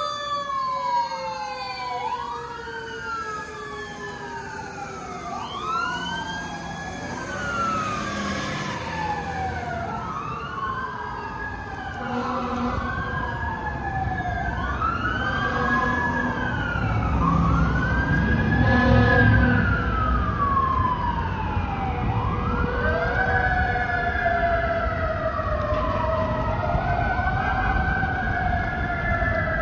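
Fire truck sirens on an emergency response, an electronic siren sweeping up and falling back roughly every one and a half seconds, with a second, slower-winding siren joining near the end. Heavy truck engine rumble and short deep steady blasts build to the loudest point a little past the middle as the apparatus passes.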